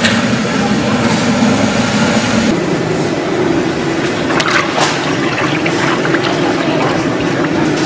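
A gas burner under a fryer runs with a steady flame for the first couple of seconds. Then cooking oil pours in a steady stream from a large jug into an empty metal fryer pot.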